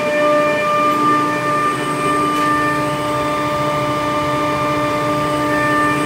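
Loud, steady machinery noise of a chiller plant room, carried by a whine of several held tones: an old Trane chiller running with a very disturbing noise.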